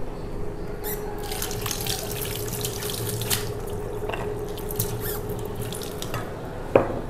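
Kitchen tap running into the sink, water splashing for about five seconds from about a second in, over a steady hum. A sharp clank near the end.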